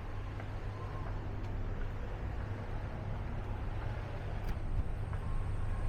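Steady road-traffic noise: a continuous low rumble with a hiss over it.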